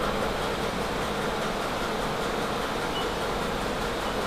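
Haas TM-1P CNC mill drilling a 304L stainless steel flange under flood coolant. The spindle and the splashing coolant make a steady, even machine noise.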